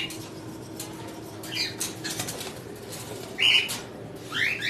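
Cockatiels giving short rising chirp calls a few times, with a brief flurry of wing flaps in the cage about a second and a half in.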